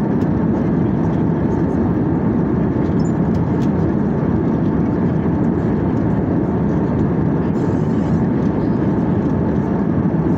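Steady cabin noise of a jet airliner in cruising flight: an even, low rumble of engines and airflow heard from inside the fuselage, with no change in level.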